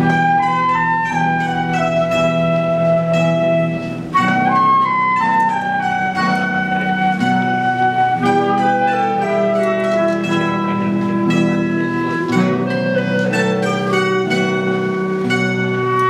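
Live chamber music: a flute plays a smooth, sustained melody over plucked mandolin and guitar accompaniment.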